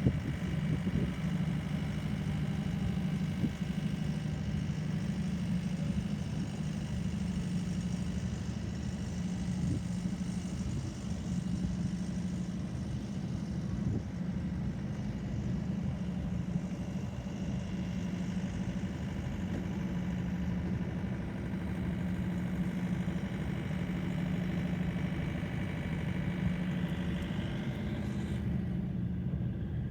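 An engine running steadily, a low even drone with fainter high whines above it. The higher sounds drop away near the end while the low drone goes on.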